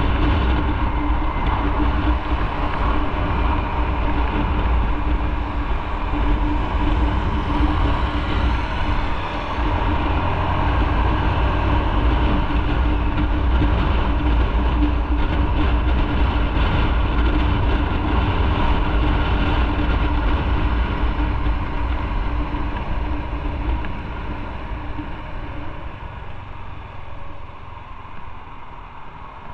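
Motorcycle riding at road speed: a steady low rumble with a held engine tone over wind and road noise. It fades over the last several seconds as the bike slows behind traffic.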